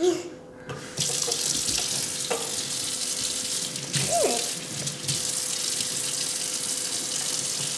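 Sink tap turned on about a second in and then running steadily while a child washes her hands under it.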